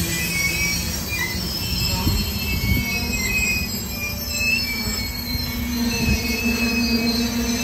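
Freight train rolling past with its wheels squealing in short, high-pitched tones over a steady low rumble.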